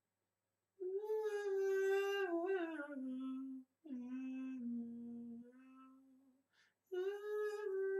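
A young man humming a melody with closed lips in three long, held phrases. Each holds one note and then steps down to a lower one; the first starts about a second in.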